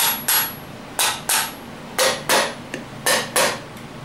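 Soft-face hammer tapping the valve stem tips and spring retainers of a small-block Chevy 350 cylinder head, two quick taps about once a second as it moves from valve to valve, to make sure the valve keepers are seated.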